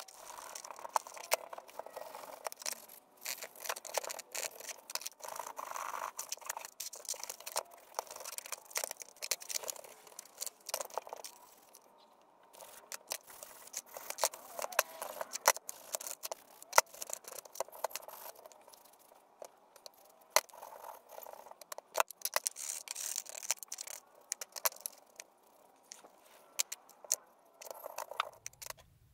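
Wet, rusty cast-iron bench vise parts handled and rubbed in a plastic tub: intermittent scraping and rubbing with frequent sharp clinks and clatters of metal on metal and on plastic.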